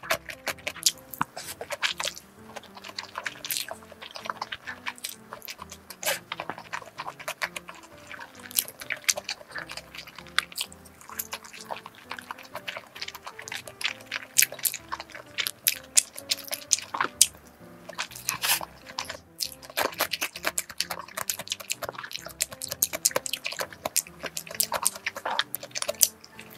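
Close-up mouth sounds of eating: chewing Shin Ramyun Toomba instant noodles and biting a large steamed dumpling, with many short wet clicks and chopsticks against a wooden dish. Soft background music runs underneath.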